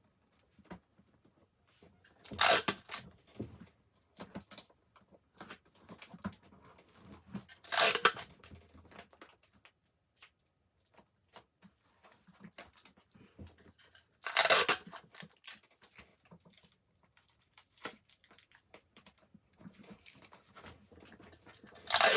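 Adhesive tape pulled off the roll in four loud rips about six seconds apart, with small clicks and rustles between as the pieces are handled and pressed on.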